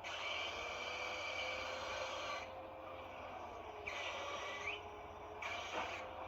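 Trailer sound design: an airy hiss with sustained high electronic tones that cut in and out in blocks every second or two, under a faint, slowly rising low tone.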